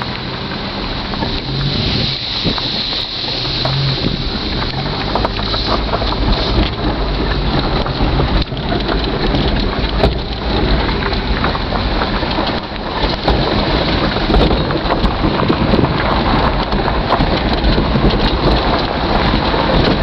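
A vehicle driving slowly over grass and gravel, heard from inside the cab: a low steady engine hum under a continuous rush of tyre and road noise with many small clicks and rattles.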